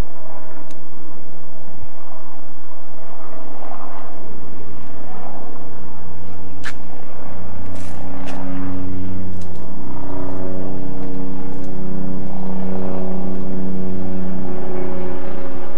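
A vehicle engine running with a steady hum that grows louder and fuller about halfway through, with a few sharp clicks.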